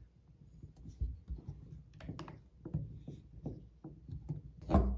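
Small clicks and scrapes of a bolt and lock nut being fitted by hand into a crossbow's buttstock, irregular handling sounds, with one louder knock near the end.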